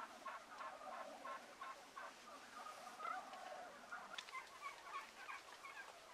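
A flock of wild turkeys calling from their roost tree: a faint, overlapping run of short, soft calls repeated many times, with one longer note near the middle.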